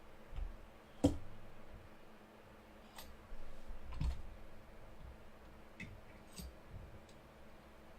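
Hard objects being handled, giving scattered light clicks and knocks, about six over several seconds; the sharpest comes about a second in.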